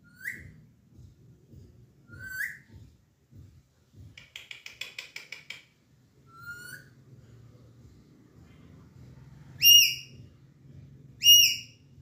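Alexandrine parakeet whistling: a few short rising whistles, a quick run of clicks, then two loud, arching whistles near the end.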